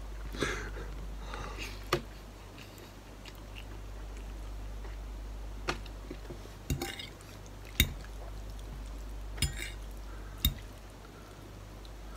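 A person chewing a mouthful of instant ramen noodles, with a metal fork clicking sharply against the bowl about half a dozen times.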